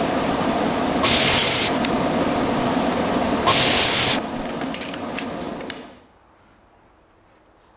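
Electric woodworking power tool running on wood, with a steady motor hum and a few short hissing bursts as it bites. It winds down and stops about six seconds in.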